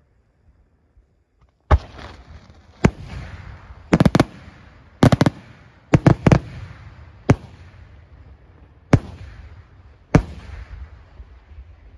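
Aerial firework shells bursting overhead: about a dozen sharp booms starting a couple of seconds in, some coming in quick clusters of two or three, each followed by a rolling echo.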